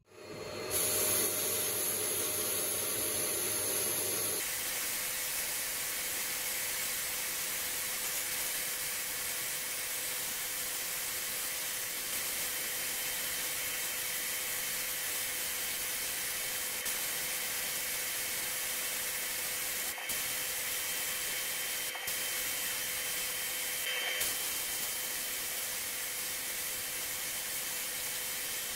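A bright, shrill hiss for about the first four seconds, then a steady hiss of a jet of air with a faint steady hum under it.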